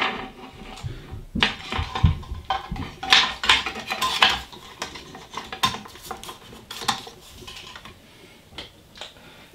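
A 3D printer's metal mainboard cover being handled and fitted back against the aluminium frame, making irregular metallic clinks, clicks and rattles that thin out over the last few seconds.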